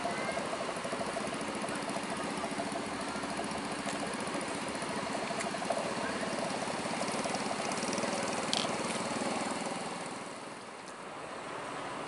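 Diesel engines of parked tour buses idling steadily, with faint voices of people around them; the sound dips briefly near the end.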